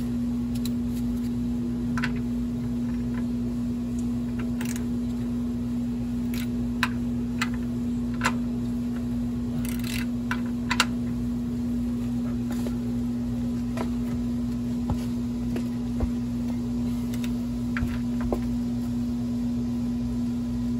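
Scattered light clicks and taps of a hand tool and a metal plug as the rear differential's fill plug is put back in, over a steady low hum.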